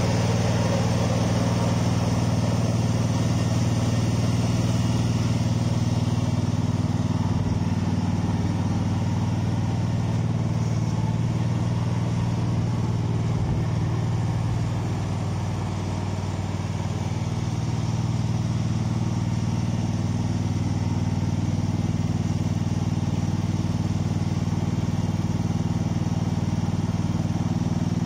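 Feucht OB100 self-propelled fruit pickup machine running steadily, its engine note even throughout, with the clatter of its brush roller and conveyor. The sound dips slightly about halfway through.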